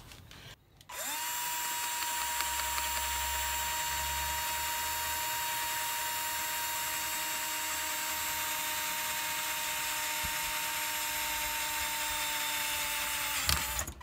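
Power drill with an 11/64 bit boring straight down through the metal backing plate of a GE box fan motor. It runs at a steady speed for about twelve seconds from a second in, then sags briefly and stops just before the end, once the bit is through.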